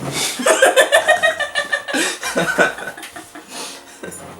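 A woman laughing in a run of loud, choppy bursts, easing off for the last second or so.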